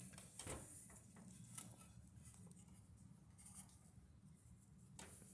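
Near silence: room tone with a faint low hum and a few faint scattered clicks.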